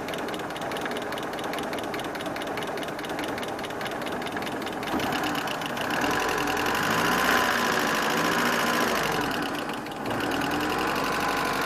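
Freshly reassembled engine running with a fast, even knock. It is revved up for a few seconds about halfway through, then drops back to idle. The knock is a sign of a fault left after the rebuild.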